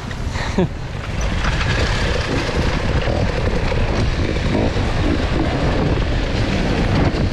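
Enduro dirt bike running as it rides down a rough forest trail, heard from the rider's helmet camera with wind and ground rumble mixed in; it gets louder about a second in. A brief voice sound near the start.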